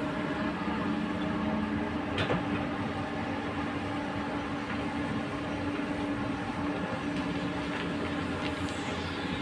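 Komatsu PC200 hydraulic excavator's diesel engine running with a steady hum while the machine digs, with one sharp knock about two seconds in.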